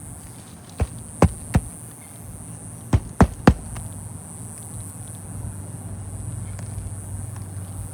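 Hammer driving roofing nails into a replacement shingle: six sharp strikes in two groups of three, about a second and a half apart.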